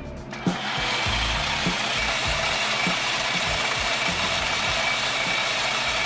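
Metal lathe turning an aluminium part: a steady cutting hiss with a high whine. It sets in about half a second in and cuts off sharply at the end.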